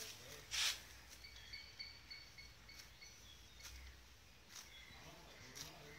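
Cow grazing, tearing off grass with a few short crisp rips, the loudest about half a second in, then others near 3.5, 4.5 and 5.5 seconds. A run of short high chirps repeats in the background between about one and three seconds.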